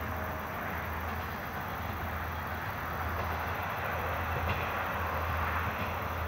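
KiHa 48 diesel railcar approaching along the track: a steady low engine drone with wheel-and-rail noise, growing a little louder from about three seconds in.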